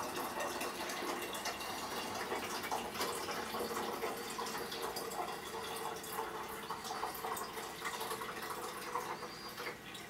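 Water pouring from a plastic pitcher through a funnel-style pourer tool into an espresso machine's water reservoir: a steady trickle, quieter near the end.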